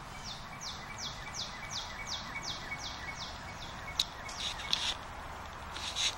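A bird singing a run of about ten high, quick downward-slurred notes, about three a second, which stops about three and a half seconds in. A few sharp clicks follow, over a steady background hiss.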